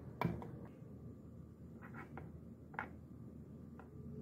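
A few faint, scattered taps and clicks over a low steady hum.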